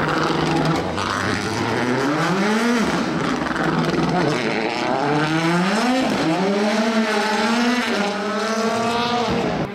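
Rally car engine accelerating hard. Its pitch climbs steeply through several gears and drops sharply at each upshift.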